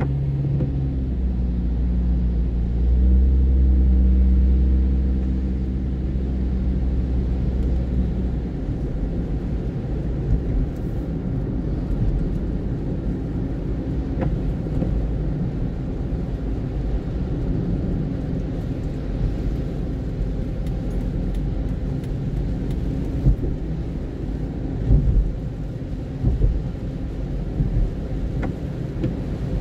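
Car engine and tyre noise heard from inside the cabin as the car pulls away on a wet road. The engine's hum rises in pitch about three seconds in and is loudest for a few seconds, then gives way to a steady low road rumble, with a few short thumps near the end.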